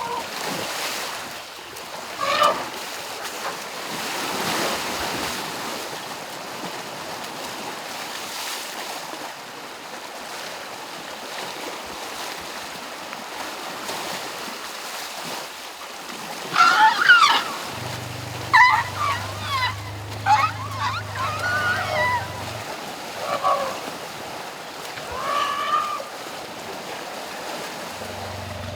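Asian elephants splashing and rolling in river water, with a constant rush of moving water. In the second half come a string of short, high calls that bend up and down in pitch: excited squeaks and chirps from the elephants.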